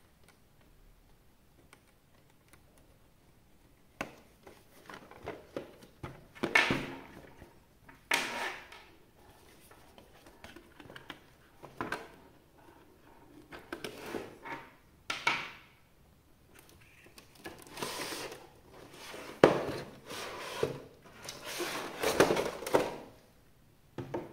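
Unboxing of the figure's box and packaging: after a quiet start, a series of irregular rustles, scrapes and knocks begins about four seconds in.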